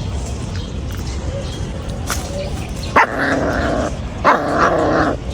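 A puppy barking twice, about three seconds in and again a second later, each call drawn out to nearly a second, over a steady low background rumble.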